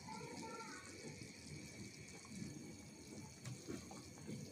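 A pot of thin sour curry with Indian olives and small fish boiling: faint, steady bubbling and gurgling of the broth.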